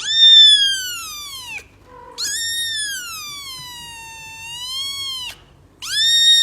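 A cat meowing: three long, drawn-out, high-pitched meows, each starting high and sliding down in pitch, the middle one lasting about three seconds.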